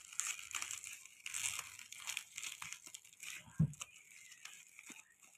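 Packaging being handled and crinkling in irregular bursts, with one soft thump about three and a half seconds in.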